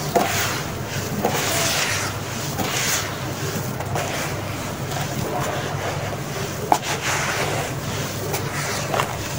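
Dry, crumbly sand-and-cement mix scooped up by hand and crumbled through the fingers, pouring back into the basin as a gritty hiss of falling grains that comes in rushes about once a second. A few sharp clicks of clumps breaking are mixed in, the loudest about two-thirds of the way through.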